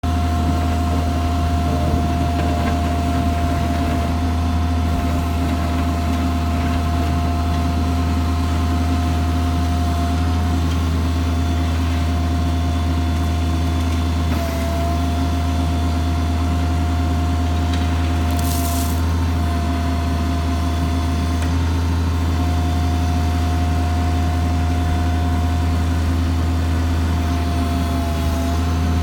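Bobcat MT52 walk-behind mini track loader's engine running at a steady speed, a low steady drone with a steady whine above it. A short hiss comes about two-thirds of the way through.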